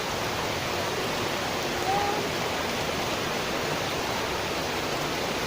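Steady rush of flowing river water, an even hiss without change.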